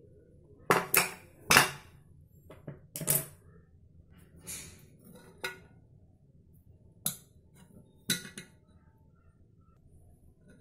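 A steel spoon clinking and scraping against an aluminium pressure-cooker pot while stirring boiled chickpeas. Several sharp clinks come close together in the first three seconds, then a few single ones later.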